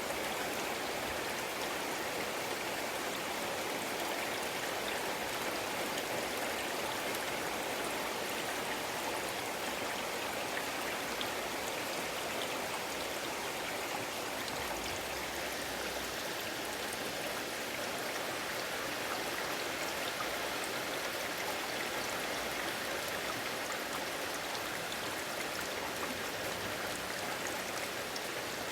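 Steady rain falling, a continuous even hiss with scattered faint ticks of individual drops.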